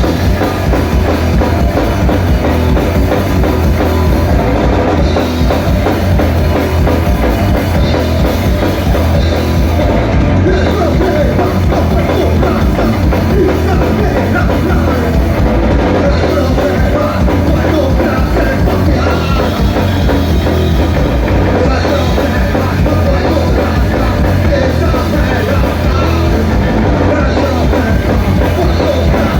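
Rock band playing loud and continuously, with a drum kit driving a dense, heavy band sound.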